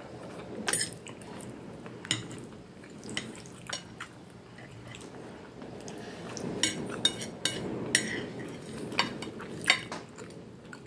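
Fork and knife clinking and scraping against a dinner plate while cutting and lifting pasta and meatballs, in scattered sharp clinks that come more often in the second half, with soft chewing between them.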